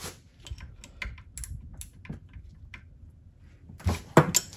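Ratcheting wrench clicking in quick, uneven runs as it loosens the bolts on the output shaft housing of a gearbox, followed near the end by a few louder metallic knocks.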